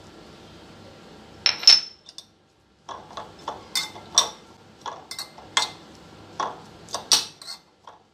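A metal spoon clinking and scraping against a ceramic bowl while stirring chopped onion, green chilli and coriander leaves. A louder clink comes about a second and a half in, then a run of sharp clinks about every half second.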